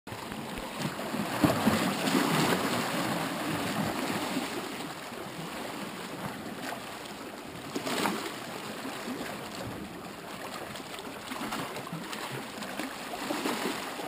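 Small sea waves lapping and splashing against shoreline rocks in uneven surges, strongest about two seconds in, with a short splash about eight seconds in.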